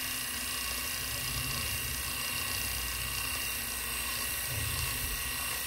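Rotary electric shaver running with a steady motor buzz, held against the cheek for a dry shave without shaving cream.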